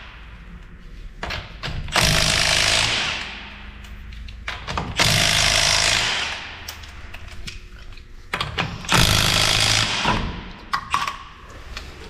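Cordless impact wrench with a 19 mm socket hammering lug nuts loose on a car's front wheel: three bursts of rattling impacts, each about one and a half seconds long, a few seconds apart, with small clicks in between.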